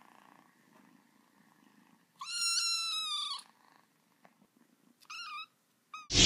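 A black kitten gives a high, squeaky mew lasting about a second, then a shorter mew about three seconds later. Loud music cuts in right at the end.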